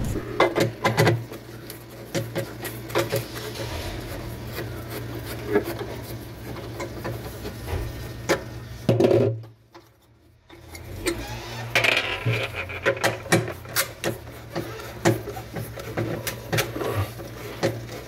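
Clicks and knocks of a screwdriver and hands working the plastic evaporator fan housing of a frost-free refrigerator as it is taken apart, over a steady low hum. The sound drops out briefly about halfway through.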